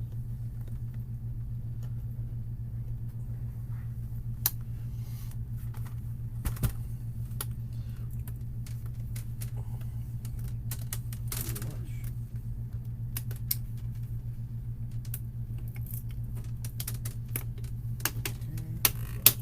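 Irregular sharp plastic clicks and snaps as a pry tool works the clipped plastic screen bezel of an HP 15 laptop loose, over a steady low hum.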